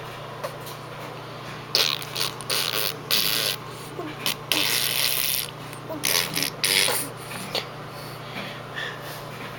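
Lips blown into wet raspberries ("pbbbttt!"): a run of bursts, several short and a couple about a second long, through the middle of the stretch.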